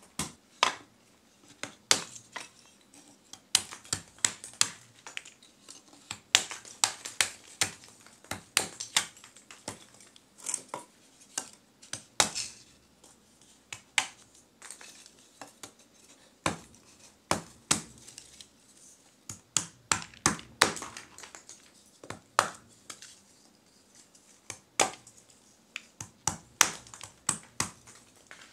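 Lumps of forge charcoal being chopped to size with a hand chopping blade against a wooden block: a run of sharp, crisp chops and clinks, irregular, about two or three a second, with short pauses between bursts.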